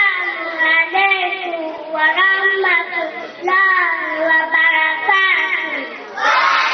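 A young child singing into a microphone in long, wavering held notes, in four short phrases. Near the end, crowd noise and cheering break in.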